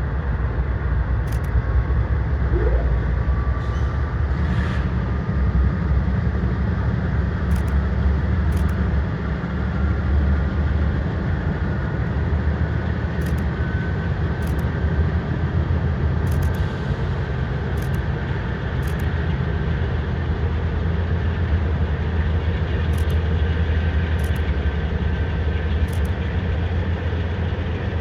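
CSX freight train rolling past: a steady, loud rumble of freight cars on the rails, with a faint high squeal and scattered sharp clicks.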